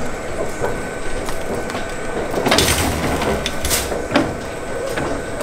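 Metal shopping cart rattling as it is pushed along a store floor, with clicks and a louder clatter around the middle.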